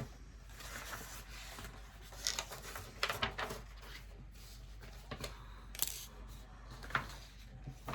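Paper rustling as the pages of a booklet are handled and turned, with several brief crisp swishes.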